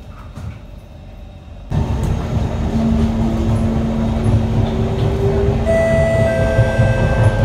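Singapore MRT train carriage running, heard from inside: a steady, loud low rumble with a few held whining tones above it. It cuts in suddenly about a second and a half in, after a quieter start.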